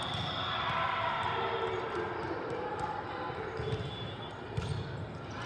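Echoing din of a large hall at a volleyball tournament: indistinct voices from around the courts, with scattered thuds of volleyballs bouncing on the floor, mostly in the second half.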